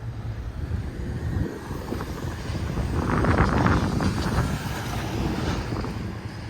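Freight cars of a manifest train rolling past, a low rumble with wheel clatter and rattles that swells to its loudest about halfway through.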